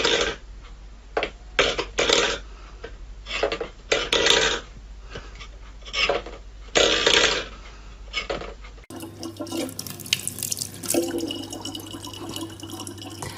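A stainless steel pet bowl, pawed by a cat, rattles and scrapes on a wooden floor in a series of short clatters. About nine seconds in this gives way to a tap running a thin, steady stream of water.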